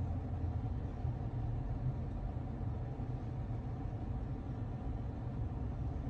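Steady low rumble of background noise inside a parked car's cabin.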